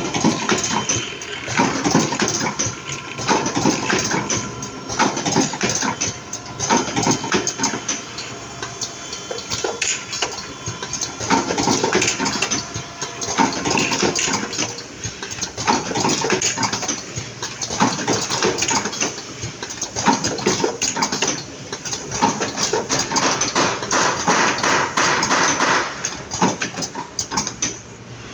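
Automatic cartoning machine running, with a dense, continuous clatter of rapid mechanical clicks and knocks.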